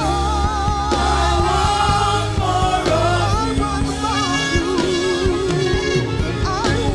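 Live gospel praise and worship music: a band playing with held, wavering sung notes over a steady bass.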